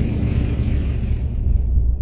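Experimental electronic music: a deep, rumbling bass drone with a hissing noise layer on top that fades out about a second and a half in.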